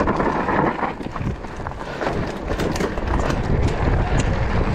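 Mountain bike riding down a rough trail: wind rushing over the microphone with the tyres and bike knocking and rattling over stony ground, the short knocks thicker in the second half.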